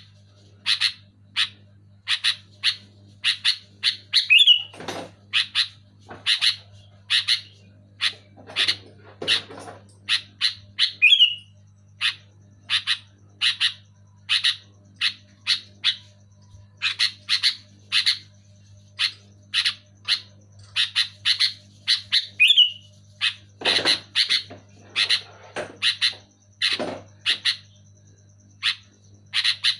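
Sooty-headed bulbul (kutilang) calling loudly and busily: a rapid series of short, sharp chirps at about two a second, broken now and then by a slurred whistle and a rougher, lower call.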